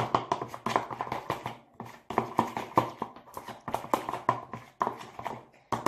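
A spoon stirring a slime base of glue and lotion in a bowl, knocking and clicking against the bowl several times a second, with a brief pause about two seconds in.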